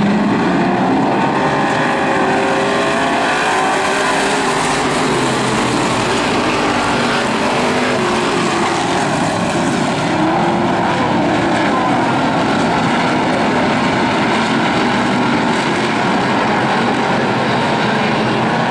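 A pack of hobby stock race cars running together at racing speed on a dirt oval. Many engines overlap into one loud, steady sound, their pitches rising and falling as the cars work through the turns.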